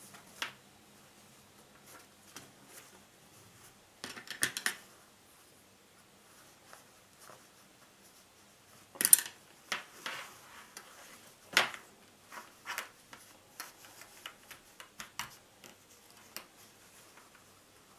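Quiet handling of a fabric bag and small sewing tools on a cutting mat: cloth rustling with scattered light clicks and taps, a short flurry about four seconds in and sharper knocks about nine and eleven and a half seconds in.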